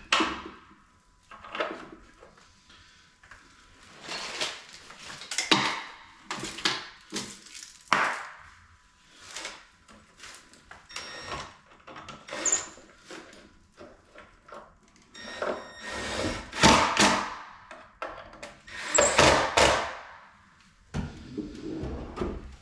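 Irregular knocks, clicks and scrapes of a handle being fitted and screwed onto a wooden vanity cabinet door, with the door moving and tools handled between strokes.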